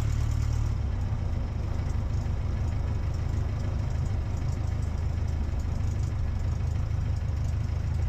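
Aeronca Chief light airplane's engine idling steadily at low power while taxiing, a low rumbling drone heard in the cockpit.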